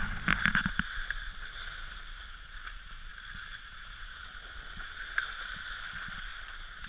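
Skis sliding and scraping over packed snow, a steady hiss, with a cluster of sharp clicks in the first second and another about five seconds in.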